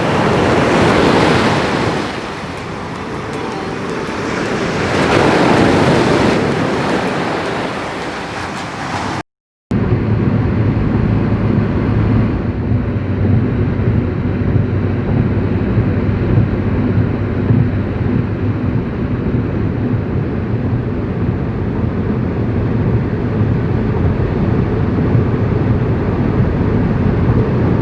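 Ocean surf washing onto the beach, swelling twice, then a sudden cut. After the cut comes a steady low rumble with a faint hum.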